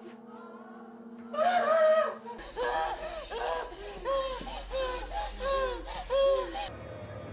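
A woman's anguished wailing, taken up by a group of women crying along with her: repeated rising-and-falling cries, about two a second, over a low drone. It all cuts off abruptly near the end.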